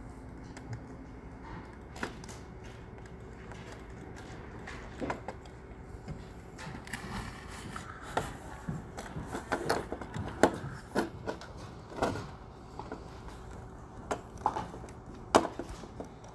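Irregular soft clicks and knocks over a steady low room hum, few at first and coming more often in the second half, with two sharper knocks near the end.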